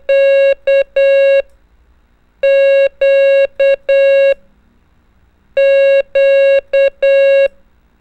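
Morse code tone sending the letter Q (dah-dah-di-dah) three times over, each time as two long beeps, a short one and a long one. The tone is a steady mid-pitched beep with a buzzy edge.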